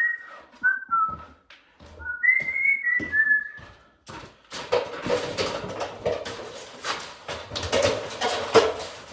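A man whistling a short tune, a few gliding notes, then from about four seconds in a run of knocks and clattering with rustling, like debris and junk being handled.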